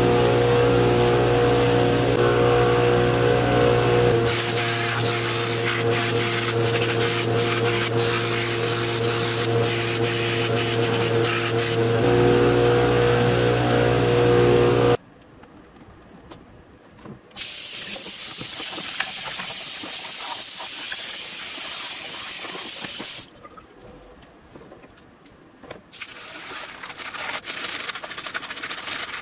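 Bench buffer's cotton buffing wheel running with a steady motor hum while small metal parts are held against it for polishing; it cuts off suddenly about halfway. Then a hiss of running water for several seconds, and near the end a brush scrubbing a part in soapy water.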